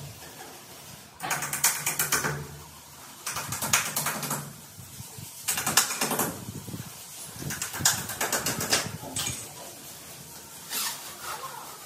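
Hammer driving nails into the edge of a UPVC panel in quick runs of sharp taps: five runs, each a second or so long, with short pauses between them.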